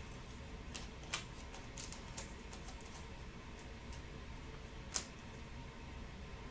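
Faint, scattered light clicks and taps, with three sharper ones about a second, two seconds and five seconds in, over a steady low hum.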